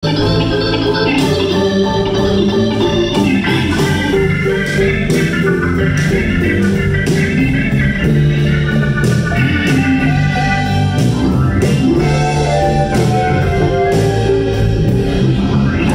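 Live band playing: an organ holding full sustained chords over electric guitar and drums, with regular cymbal and snare hits. A rising slide in pitch comes near the end.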